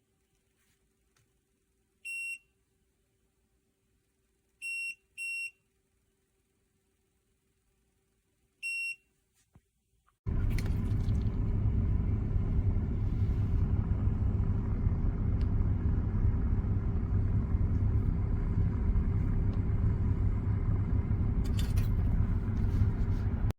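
Short, high electronic beeps, four in all with two close together about five seconds in, typical of button presses on a car electric kettle's control panel. About ten seconds in, a steady low rumble starts suddenly and runs on.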